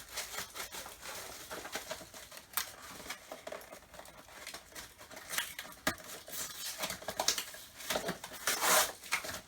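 Plastic packaging being rummaged through and pulled out of a box: irregular crinkling and rustling with light knocks of plastic parts, the loudest rustle coming near the end.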